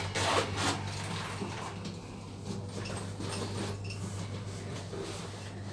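Schindler passenger lift car running between floors: a steady low hum inside the car, with a few faint clicks near the start.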